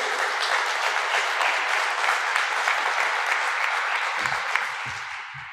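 Audience applauding with many hands clapping, dying down near the end.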